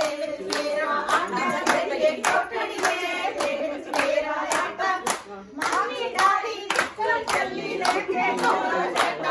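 Women singing together to rhythmic hand-clapping, about three claps a second, with a brief break a little past halfway.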